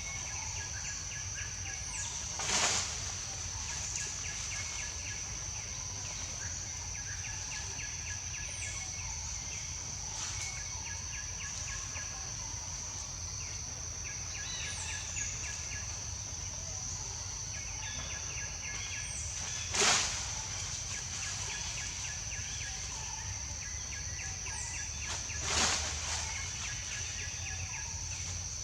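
Outdoor ambience: a steady high-pitched drone with small repeated chirps and pulsing calls over a low rumble, broken by three brief louder sounds, about three seconds in, about twenty seconds in and near the end.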